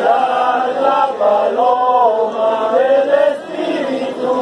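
A group of pilgrims singing a religious hymn together, in long held notes that rise and fall in a slow melody.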